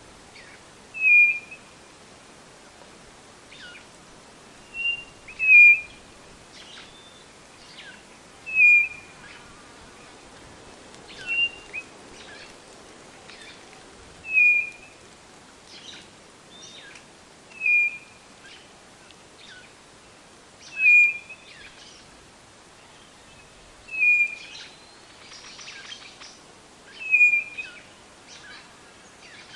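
White-bellied nothura (codorna-do-nordeste) calling: a short, high whistled note repeated about every three seconds, some notes with a softer lead-in note just before. Other small birds chirp faintly in the background.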